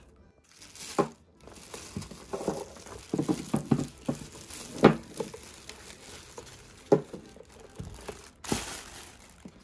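Unpacking a new electric kettle: wrapping crinkles and tears as parts are taken out, with several light knocks as pieces are handled and set down, and a louder rustle near the end.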